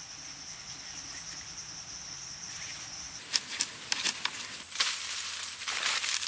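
A steady, high-pitched insect drone, such as a cricket makes, fills the first half and stops abruptly about three seconds in. Then come sharp clicks and rustling of thin wooden sticks and leaf litter being handled, with a higher insect buzz faintly underneath.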